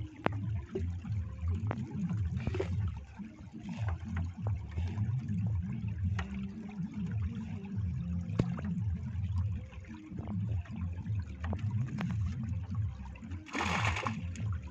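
Water trickling and splashing as a fisherman works a bamboo lift net, with scattered light clicks and a louder splash near the end, over a steady low rumble.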